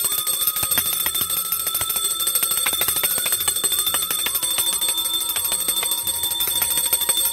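Small brass puja hand bell rung rapidly and continuously during a harati offering, its high ringing tones held steady over the fast clapper strikes.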